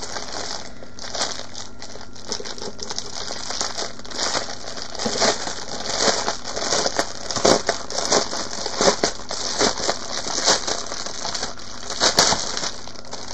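Clear plastic wrapping around a rolled diamond-painting canvas crinkling and crackling as fingers pick at it and work it open. The crackles are irregular, with louder sharp ones scattered throughout.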